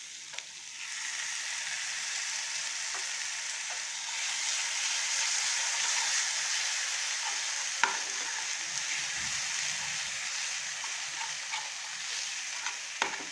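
Onion-tomato masala sizzling in a metal frying pan as curd mixed with gram flour is stirred through it with a slotted spatula. The sizzle grows about a second in and stays steady. A few sharp clicks of the spatula against the pan come through it, the loudest about eight seconds in and another near the end.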